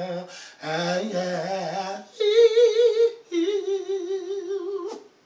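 A man singing gospel unaccompanied, holding long wavering notes without words: one lower note, then two notes sung much higher, likely in falsetto. A short click near the end, and the sound cuts off.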